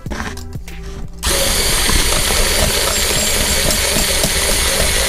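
Handheld electric mixer with a whisk attachment switched on about a second in and running steadily at speed, mixing slime.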